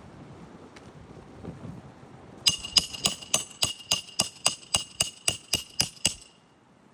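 A hammer striking metal: about fourteen quick blows with a metallic ring, roughly four a second, starting about two and a half seconds in and stopping a little before the end.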